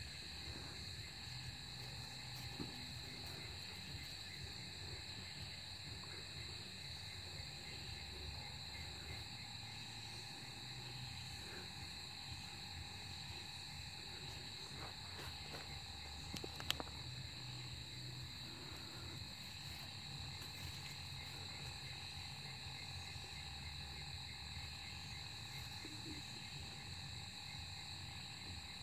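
Night insects, crickets, trilling steadily in a high, unchanging chorus. Under it are low rustling and rubbing from handling, with a sharp click a little past the middle.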